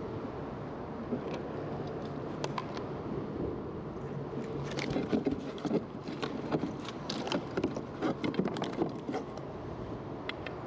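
Irregular knocks, clatter and splashes on a kayak as a freshly landed redfish is handled, most of them from about halfway through until near the end, over a steady low background rumble.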